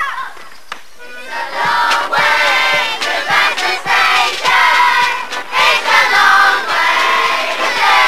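A crowd of voices singing a song together, starting about a second and a half in, over a steady tramp of marching feet.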